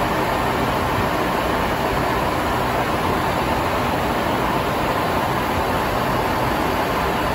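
Steady in-flight noise of a jet aircraft heard from inside: an even rush of airflow and engines at cruise, unchanging in level.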